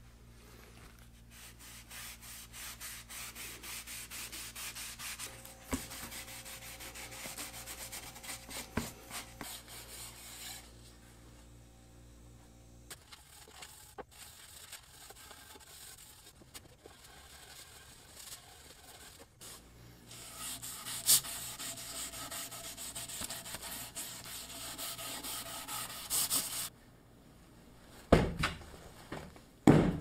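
Rapid back-and-forth rubbing strokes over wood while finish is worked into a walnut cabinet, in two long spells with a quieter stretch between. A few sharp knocks come near the end.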